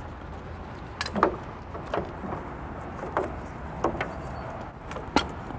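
A helicopter's metal main cargo hook clanking and clicking about six times as it is picked up and handled on its cables with gloved hands, over a low steady rumble.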